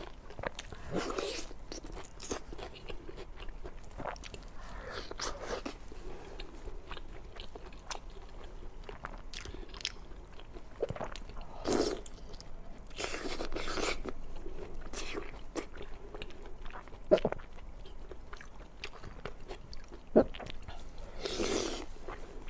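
Close-miked eating: a person biting and chewing food, with crunches, wet mouth sounds and scattered sharp clicks coming in irregular bursts every few seconds.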